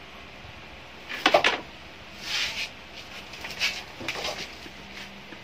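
Plastic printer parts being handled and fitted by hand: a quick cluster of clicks about a second in, then several short scrapes and rustles.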